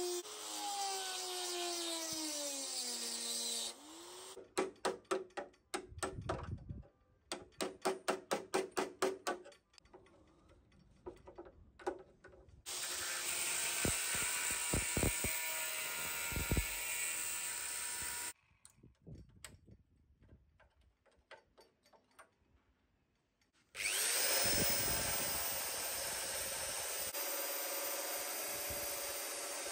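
Power tools cutting and grinding the rusted sheet steel of a car tailgate in separate bouts. A cordless tool runs with its motor pitch falling under load, then comes a quick run of short bursts. An angle grinder runs steadily for several seconds, and near the end another tool spins up and runs steadily.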